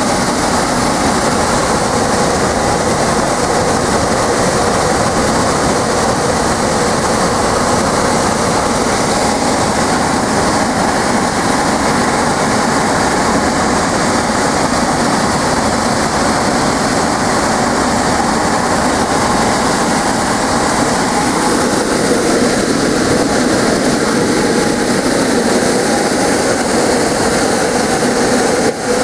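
Squirrel-cage blower fan from an air handler, driven by a convertible motor wired at 3/4 horsepower, running steadily and throwing out a loud rush of air.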